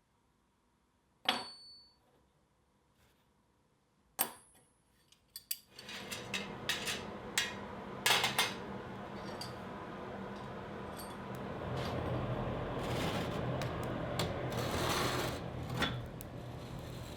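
Steel tools clinking on a hard surface, twice with a short high ring. A few seconds later a steady machine noise with a low hum starts and builds, with more metal clicks and knocks over it.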